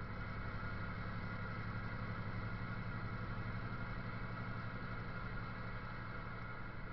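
Steady drone of a car's engine and tyres heard from inside the cabin while driving, a low hum with a fainter higher hum over it and no change in pace.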